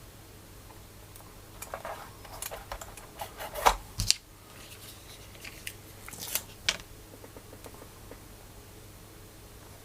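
Irregular clicks and knocks of the newly built keyboard being handled, with the loudest knocks about four seconds in.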